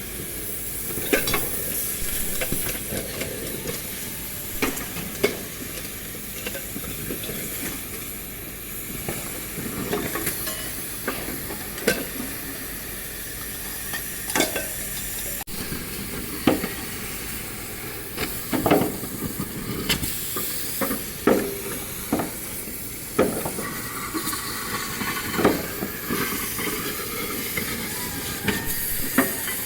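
Steady hiss with sharp metallic knocks, irregular, about one every second or two, as scrap metal is struck and handled in a compressor-recycling workshop.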